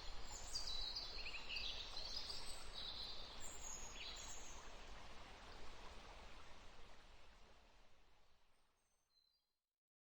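Birds chirping, several short high calls in the first half, over a steady outdoor background hiss; it all fades out to silence near the end.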